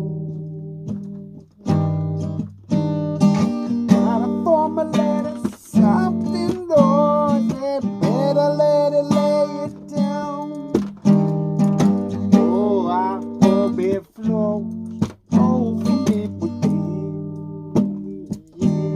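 Acoustic guitar strummed and picked in a loose, improvised rhythm, with notes that waver and bend in pitch.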